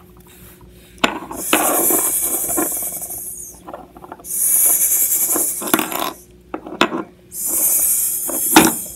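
Three long snake-like 'sss' hisses made by a person voicing a toy snake character, with a few sharp clicks of plastic LEGO pieces being moved on a wooden tabletop.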